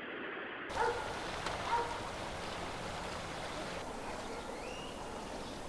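Steady outdoor background noise, with a few brief faint calls, one of them rising about four seconds in.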